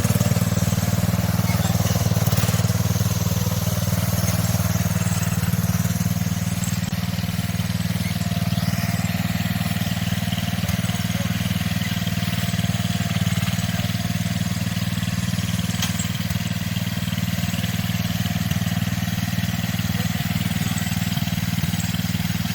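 Small garden tractor engine running steadily at an even speed.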